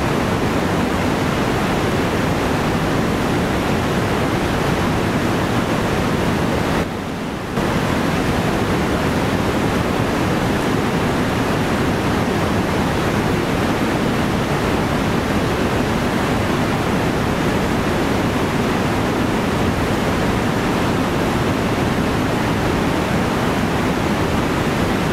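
Whitewater of a fast creek rushing and splashing over rocks: a steady, loud noise that dips briefly about seven seconds in.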